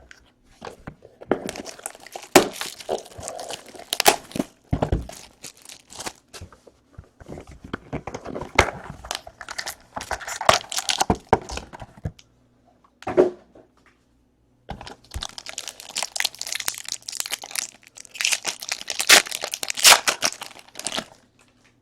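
Packaging of a box of trading cards being torn open and crinkled by hand, in irregular crackling, rustling bursts with a pause of a couple of seconds about two-thirds through.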